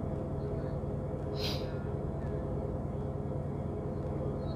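Steady low drone of boat engines, holding a few constant hum tones. A short hiss comes about a second and a half in.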